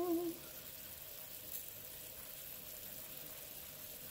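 Pot of chicken and vegetable soup simmering on a gas stove: a faint, steady hiss with a thin steady hum underneath.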